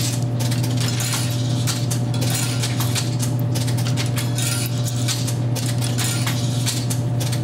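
Dimes fed one after another into a soda vending machine's coin slot, making a rapid run of metallic clicks and clinks as the machine's older three-column Coinco coin changer accepts them and stacks them in its tubes. A steady low hum runs underneath.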